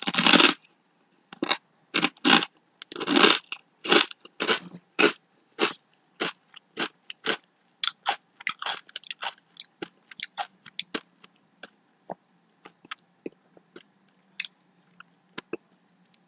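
A crinkle-cut kettle-cooked potato chip being bitten and chewed close to the microphone. A loud crunch comes right at the start, then a quick run of chewing crunches that grow fainter and further apart toward the end.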